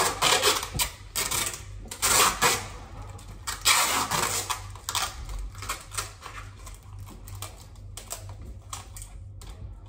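Packaging being handled and opened: irregular crinkling, rustling and clicking bursts, busiest in the first half and sparser afterwards.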